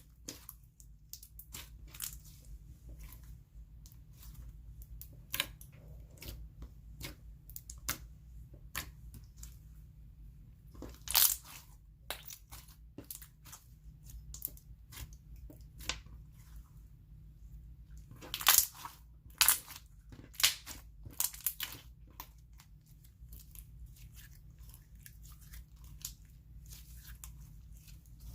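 Neon clear-glue slime with fimo slices being stretched and squeezed by hand, giving off scattered sharp pops and crackles of bursting air bubbles. The pops come in louder bunches about a third of the way in and again about two-thirds through.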